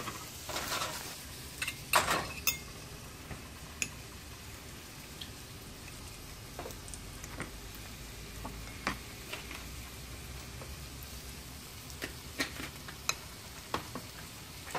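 Fish sizzling steadily in a frying pan on an electric stove burner, with a few scattered light clicks scattered through.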